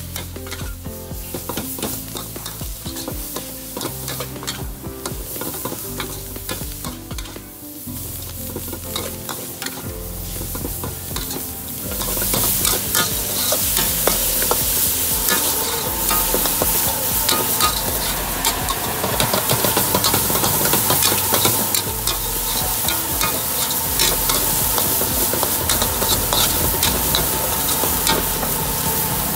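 Stir-frying in a steel wok: a metal spatula scrapes and tosses food while hot oil sizzles. About twelve seconds in the sizzle gets louder and brighter.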